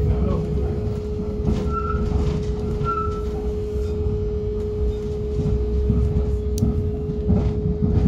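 Hannover Stadtbahn TW 6000-series light-rail car running through a curve, heard from inside the car: a low running rumble under one steady high-pitched tone, with two short squeals about two and three seconds in.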